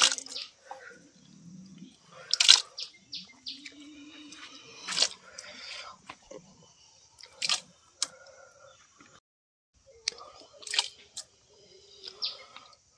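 Hands mixing and squeezing wet cooked-rice pig mash in a bucket and a big pot: soft squelching with a sharp wet slap or splash every two to three seconds. Birds chirp faintly in the background.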